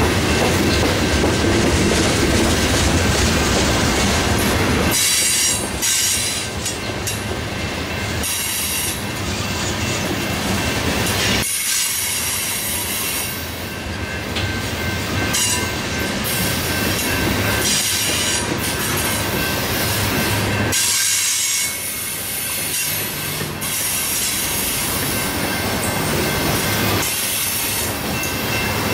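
Freight train cars rolling past, loud and steady, with the wheels squealing on the rails in high, shrill surges that come and go.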